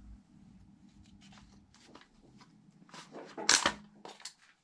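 Hands handling small engine parts and hoses: scattered light clicks and rustles, with a louder clatter of clicks about three and a half seconds in, over a faint steady hum.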